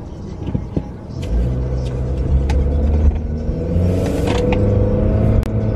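Car running, heard from inside the cabin: a steady low rumble that gets louder about a second in, with the engine note rising a little as the car speeds up.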